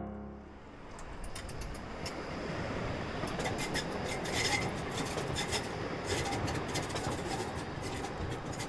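Light-rail tram passing along the track: a steady rolling rumble of steel wheels on the rails, with scattered sharp clicks and scrapes.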